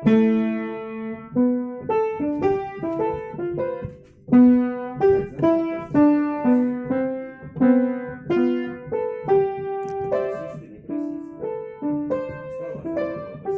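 Upright piano played by a small child: a simple tune of single notes and pairs of notes, about two or three a second, with a brief pause about four seconds in.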